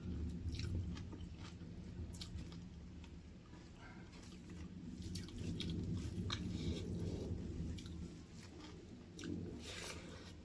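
A person chewing and biting into chicken feet and gizzards, with wet mouth sounds and scattered sharp crunches and clicks at an uneven pace.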